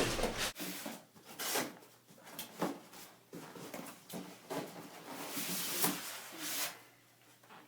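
Packaging and parts being handled and set down out of a TV box: a string of short rustles, scrapes and light knocks, fading off near the end.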